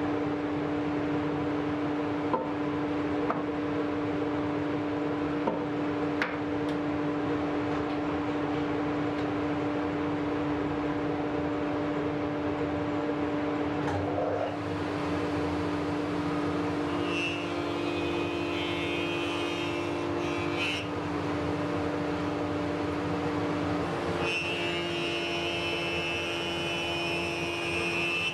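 Woodworking power tool running with a steady hum; twice in the second half a higher, harsher sound joins in as the tool takes load.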